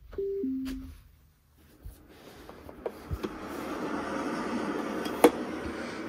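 Bedside white-noise sound machine switched on: a short two-note descending beep as its button is pressed, then its steady hiss fading in over a couple of seconds and running on. A few small clicks sound over it, the sharpest about five seconds in.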